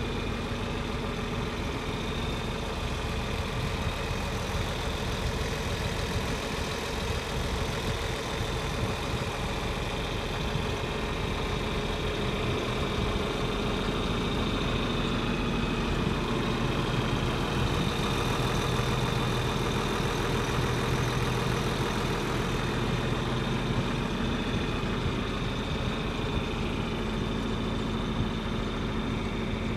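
An engine running steadily at idle, with an even, unchanging drone.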